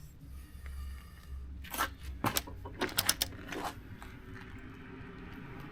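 Sharp clicks and light metallic knocks, about eight of them bunched in the middle, from wrenches working on the axle nut of a Kawasaki Vulcan 650 S as it is tightened towards the cotter pin hole.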